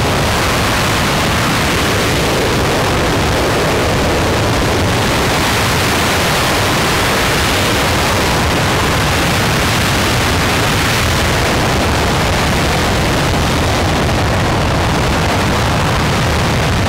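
An RS-25 rocket engine, a former Space Shuttle main engine burning liquid hydrogen and liquid oxygen, firing on a test stand: a loud, steady, even roar with no change in level.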